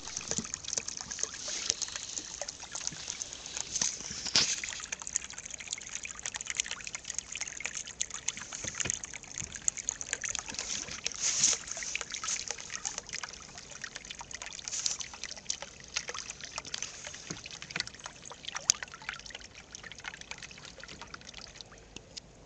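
Water trickling and dripping close by, a run of small irregular splashes and drips.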